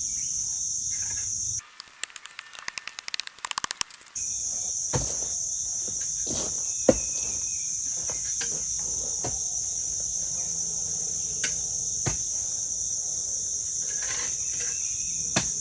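Crickets chirring in a steady high chorus. About two seconds in the chorus drops out for a couple of seconds, replaced by a quick run of clicks, and a few sharp knocks sound later on.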